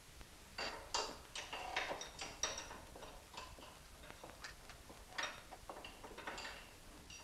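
Irregular light metallic clinks and taps of hand tools in a car repair workshop, some ringing briefly.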